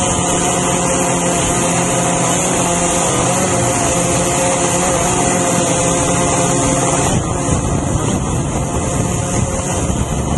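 A drone's motors and propellers running in flight, heard from the camera on board: a steady, loud multi-tone whine over a hiss. The tone changes about seven seconds in.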